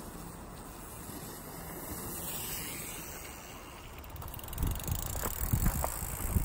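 A steady outdoor hiss with some wind on the microphone. About four seconds in, irregular close thumps and rustles start as a mountain biker walks a bike up a trail covered in dry beech leaves: footsteps and tyres in the leaves.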